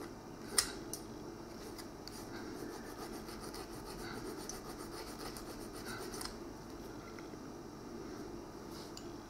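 Small needle file scraping in rapid short strokes over the soldered seam of a homemade brass winter lure, taking off lumps of solder. The filing stops about six seconds in, leaving a few light clicks.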